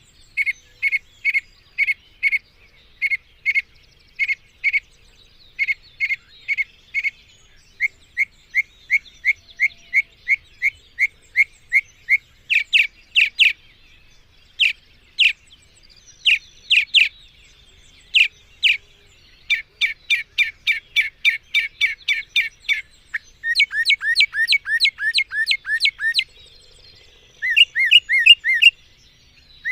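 Mockingbird (cenzontle) singing: a steady string of phrases, each a quick run of the same short note repeated several times before switching to a different note pattern.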